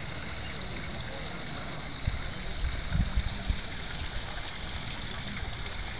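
Water splashing in a fountain, a steady even hiss. A few low thumps on the microphone come about two to three and a half seconds in.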